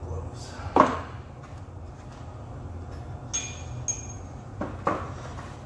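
Metal transmission parts knocking and clinking as the gearbox is taken apart by hand: one loud knock about a second in, two short ringing metallic clinks a little past the middle, then two more knocks near the end.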